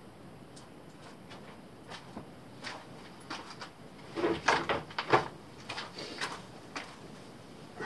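Small hardware being rummaged through by hand: scattered clicks and clatters of screws and metal parts, thickest and loudest about four to five seconds in.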